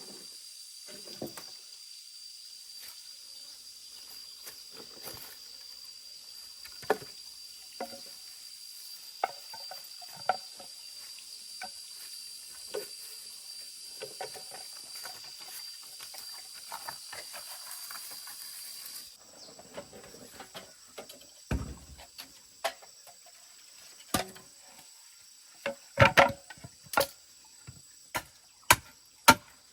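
Scattered small knocks and clatter over a steady high-pitched hiss. After a change in background about two-thirds of the way through, a run of sharp knocks comes about two a second near the end.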